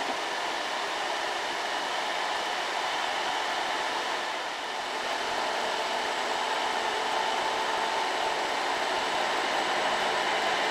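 Diesel engine of a heavily loaded Mitsubishi Canter light truck pulling up a steep incline: a steady drone with a whine, growing slightly louder over the second half.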